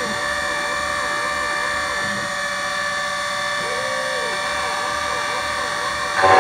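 Miracle A7 Plus automatic key cutting machine milling an automotive key blank: a steady motor whine with a regular wavering in pitch about twice a second as the cutter works along the blade.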